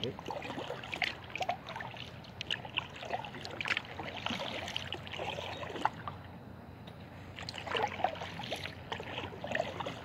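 Kayak paddle strokes in calm river water: splashes and drips off the blade, coming in irregular bursts, with a quieter pause a little past halfway.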